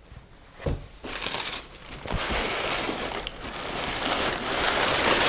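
Tissue paper crinkling and rustling as it is pushed aside and pulled up out of a cardboard box, starting about a second in after a soft knock.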